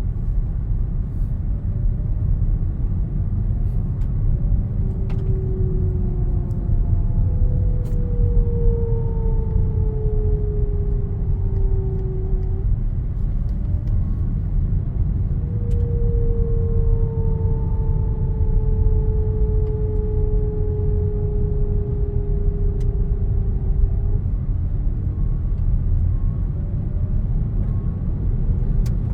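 Hyundai Kona (2020.5 model year) in motion with a steady low rumble, and twice a whine-like tone that fades in and slowly falls in pitch over about eight seconds, once early in the first half and again past the middle: an odd noise the owner finds strange.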